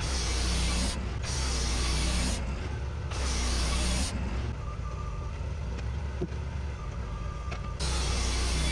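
Portable sawmill's engine running with a steady low hum, while a loud hiss comes and goes in stretches of about a second.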